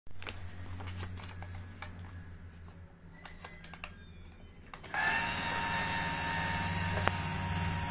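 Paper crinkling and small clicks as a banknote is pushed into the slot of a toy electronic ATM piggy bank, then about five seconds in its small note-feed motor starts with a steady whir, drawing the note in. A single sharp click comes near the end.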